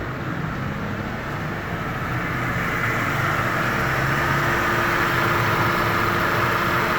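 Mercedes-Benz W211 E200 engine idling steadily, growing louder over the first few seconds and then holding even. It runs smoothly, the misfire from water-soaked spark plugs and ignition coils now cured by cleaning them.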